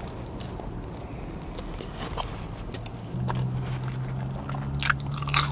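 A person biting into a bacon burger and chewing it, with small mouth clicks and a few sharper smacks near the end. A low steady hum comes in about three seconds in.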